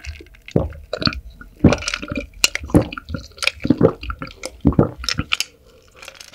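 Close-miked wet eating sounds of spicy seafood ramen: irregular short smacks and squishes, about three a second, easing off near the end.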